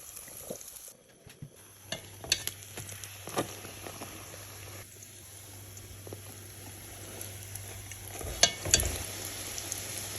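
Kurdish flatbread (nan) frying in hot oil, a steady sizzle, with several sharp clicks of a utensil against the pan, the loudest two close together near the end.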